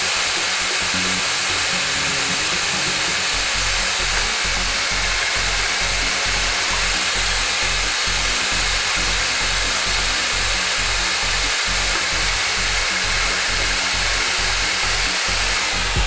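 Electric drill running steadily with a drill bit and countersinking collar boring into fibre cement board, a continuous even whirr and grind. A low regular pulse runs underneath from about three seconds in.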